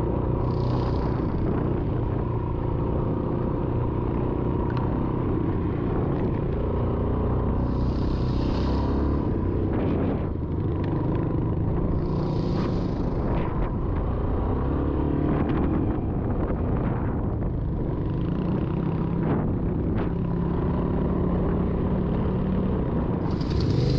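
Yamaha XT350's single-cylinder four-stroke engine running under way on a dirt trail, its note rising and falling with the throttle. A few short hissing rushes cut in over it.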